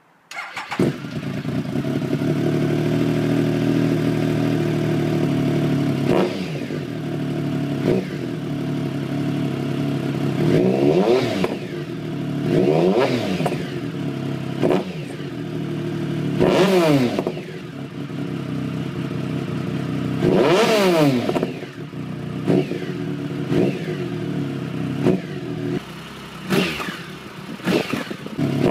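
Triumph Sprint 1050's three-cylinder engine comes in suddenly and idles steadily, then is revved in a series of short throttle blips. Each blip rises and falls in pitch, with a quicker cluster of blips near the end.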